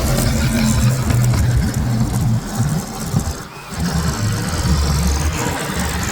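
An engine running steadily, dipping briefly about three and a half seconds in.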